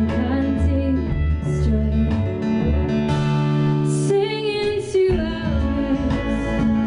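A live band playing a song: a woman sings over acoustic guitar, electric guitar, cello and drums, with a cymbal wash about three seconds in.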